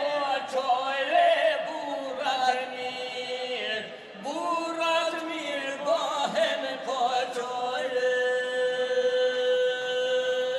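Men singing unaccompanied in the traditional putira style, with long drawn-out, wavering notes. Near the end one note is held steady for a couple of seconds before it stops.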